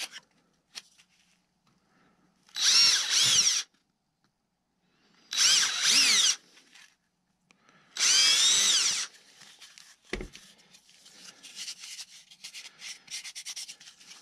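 Cordless drill boring out holes in a wooden motor-mount plate: three short runs of about a second each, the motor's pitch rising and falling within each run. Then a knock and scattered light clicks.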